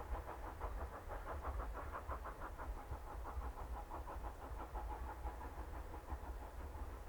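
Steam train running: a quick, even rhythmic beat over a low rumble, with no whistle sounding.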